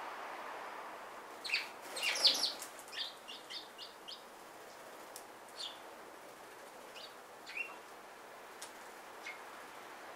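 Barn swallows chirping around their mud nests. A burst of sharp, loud chirps comes about one and a half seconds in, then a quick run of short notes, then scattered single chirps.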